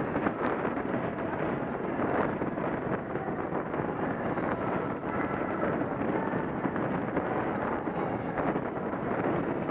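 Steady rush of wind on the microphone of a camera on a track bike riding at about 20 mph, mixed with the rolling noise of tyres on the wooden velodrome boards.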